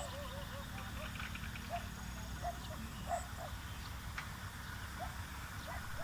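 Rural outdoor ambience: a steady low rumble with many short, repeated mid-pitched animal calls coming in irregular runs.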